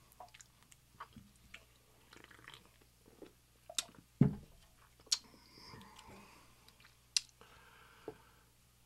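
Close-miked chewing of breakfast food, with wet mouth clicks and smacks scattered throughout. A single low thud about four seconds in is the loudest sound.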